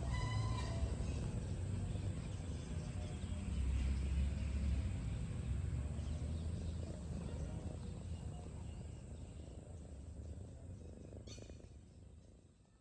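Outdoor garden ambience: a steady low rumble with faint bird chirps, and a short pitched call just after the start. There is a single click near the end, and the sound fades out.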